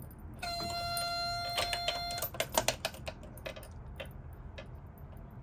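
A steady electronic warning buzz sounds for about two seconds as the ignition is switched on, then cuts off. It is followed by a run of light, sharp clicks.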